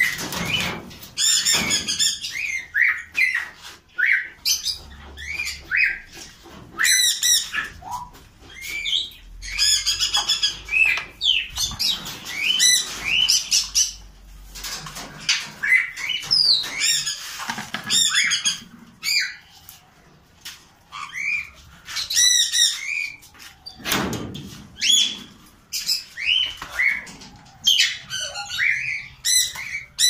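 Parrots calling: a steady run of short squawks and chirps, many of them rising and falling in pitch, with harsher screeches mixed in and a low bump about two-thirds of the way through.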